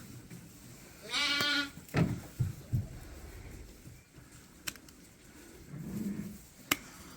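A sheep bleats once about a second in, a short wavering call. A few dull thumps follow, and later two sharp clicks.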